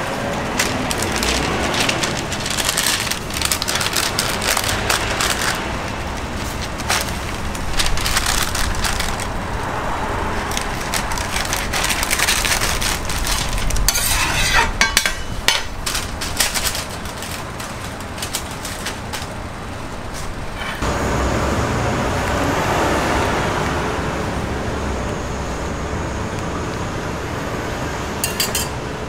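Paper wrapper and bag crinkling and rustling as a toasted sandwich is handled and bagged, with scattered clicks and knocks from the griddle counter. At about twenty seconds in the crinkling stops and a steady background noise takes over.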